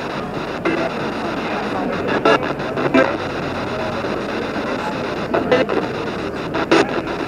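P-SB7 spirit box sweeping through radio stations: a steady hiss of static broken by short choppy bursts of broadcast sound, clustered about two seconds in and again after five seconds.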